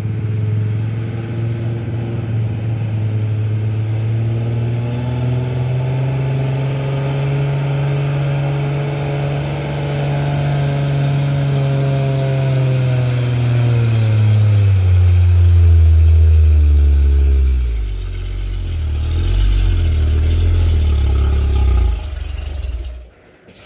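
Loaded diesel cargo truck's engine labouring up a steep grade under full load. Its note holds for the first half, then falls steadily over several seconds as it loses power and bogs down into a low, uneven chug, before dropping away sharply near the end.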